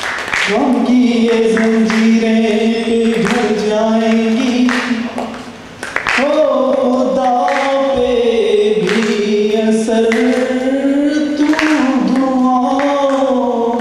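A man singing unaccompanied into a microphone: two long phrases of held notes that glide up and down, with a short break for breath about five and a half seconds in.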